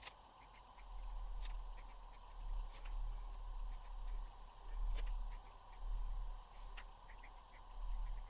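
Posca paint pen marking on copy paper: short taps and light scratches of the tip, scattered through, over a low hum that swells and fades.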